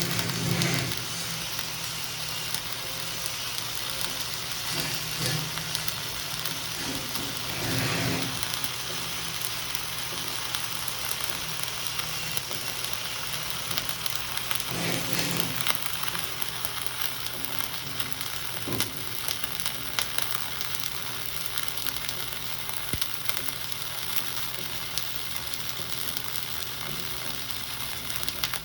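Flux-core wire-feed arc welding a vertical-up fillet pass on a steel T-joint: the arc's steady crackling sizzle, continuous throughout.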